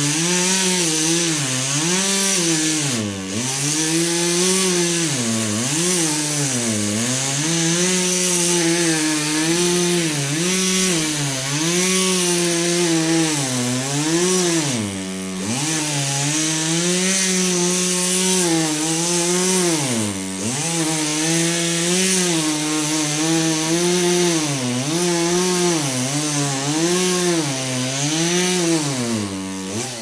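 Two-stroke chainsaw running at high revs while cutting into a felled tree. Its pitch keeps sagging as the chain bites and bogs in the wood, then climbing back up, with deeper dips about 3, 5, 7, 15 and 20 seconds in.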